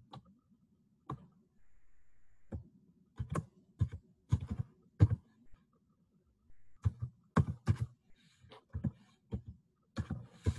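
Computer keyboard keys tapped one at a time in irregular clusters while a password is typed in, deleted and typed again.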